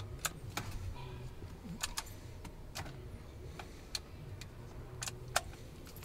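Scattered light clicks and key rattle as a key is inserted and turned in a Jeep Grand Cherokee's ignition key module, with no starter or engine sound: the no-crank fault that the mechanic puts down to a key module that does not recognise the key.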